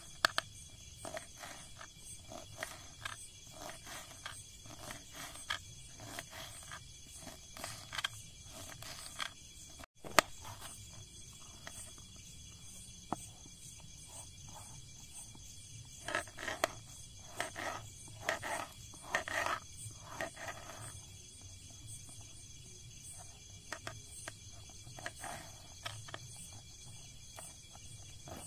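Knife chopping green chillies and capsicum on a wooden chopping board: a run of short knocks as the blade meets the board, with a quicker run of chops a little past halfway.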